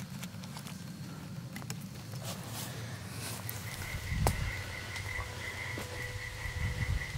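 Scattered clicks and rustles on the wet forest floor underfoot, with a dull thump about four seconds in. From about halfway through, a steady, evenly pulsing high-pitched call sets in.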